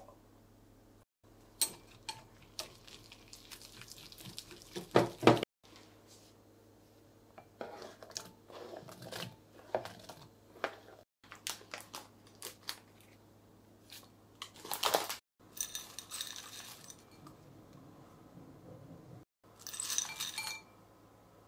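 Clinks, taps and scraping of utensils and food in a glass mixing bowl while batter ingredients are mixed and onion pieces and vegetables are dropped in. The sounds come in several short separate takes, with the loudest clatters about five seconds in, near the middle and near the end.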